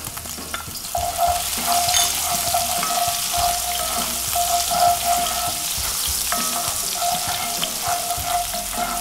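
Chopped onions and minced garlic sizzling in hot oil in a cast-iron skillet, stirred with a wooden spoon that scrapes and taps the pan now and then.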